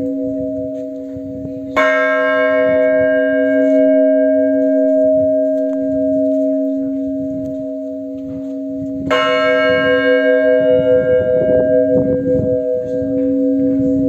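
Large church bell struck slowly in the Russian Orthodox blagovest, the measured ringing that calls the faithful to the service. Two strokes about seven seconds apart, each one's hum ringing on until the next.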